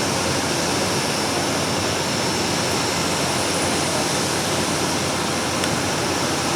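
Boeing 787-9 turbofan engines running with a steady rush of jet noise and a faint high whine held throughout.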